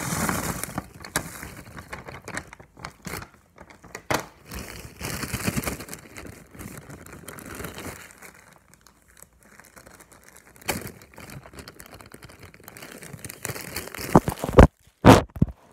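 Large clear plastic bag of almonds being handled and crinkled in irregular rustling bursts, with a few sharp, louder knocks near the end.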